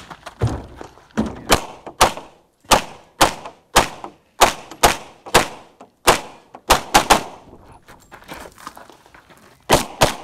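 Open-division 9mm major competition pistol firing rapid shots, mostly as quick pairs about half a second apart, during a timed IPSC stage run. After a pause of about two and a half seconds comes a last quick pair near the end.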